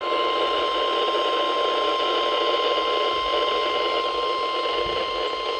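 Emergency alert warning tone: a single steady high tone near 1 kHz over steady radio hiss, the alarm tone that comes before a weather warning is read.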